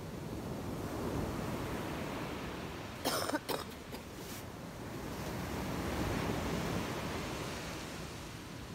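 Surf breaking on a beach, a steady wash that swells and fades. About three seconds in, a short loud burst of noise close to the microphone, with a fainter one a second later.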